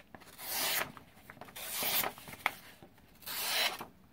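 Cold Steel 3-inch paring knife's blade slicing through a sheet of copier paper in three strokes, each a short rasp of about half a second. It is a sharpness test out of the box, and the knife cuts cleanly: plenty sharp.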